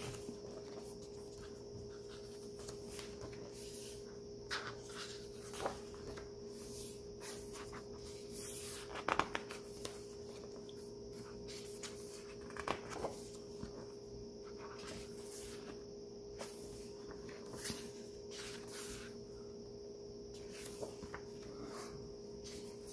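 Pages of a large hardcover photo book being turned and smoothed by hand: soft paper rustles and flaps every few seconds, the loudest about nine seconds in, over a faint steady hum.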